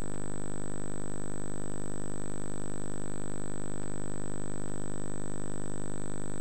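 Steady electrical hum and buzz with a thin, high-pitched whine above it, unchanging throughout: background noise from VHS tape playback and capture over a blank stretch of tape.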